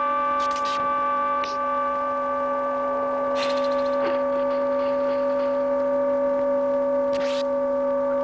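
Electronic drone on the film's soundtrack: a steady chord of several held tones, with a few brief hissing swishes over it, about half a second in, at about a second and a half, near the middle and near the end.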